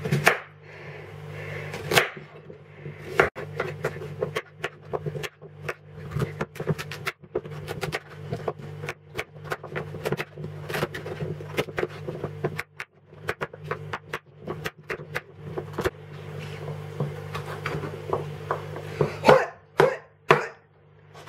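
A large kitchen knife chopping a butternut pumpkin, skin on, into chunks on a wooden chopping board: a run of irregular knife strikes on the board, a few much louder than the rest. A steady low hum runs underneath.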